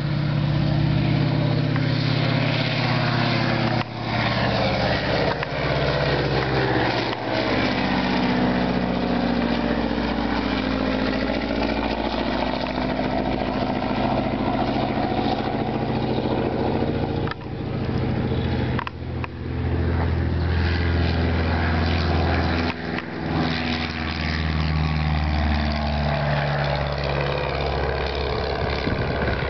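Alexander Eaglerock biplane's piston engine at full takeoff power, its pitch dropping as it passes by and climbs away. In the last third a Cessna 140's engine at climb power passes overhead, with a heavier low drone.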